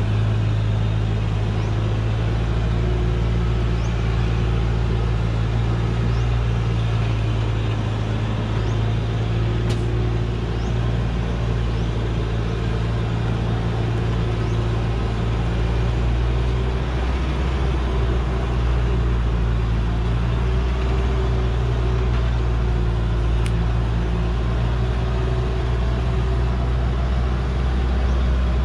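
Heavily loaded log truck's diesel engine running steadily under load as it climbs a steep dirt slope; the engine note drops lower about seventeen seconds in.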